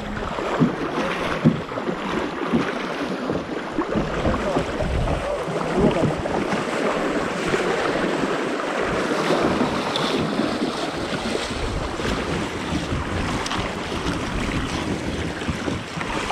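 Kayak paddle dipping and splashing in shallow river water over a pebble bed, the water rippling and bubbling around it, with a few sharper splashes. Wind buffets the microphone with uneven low rumbling.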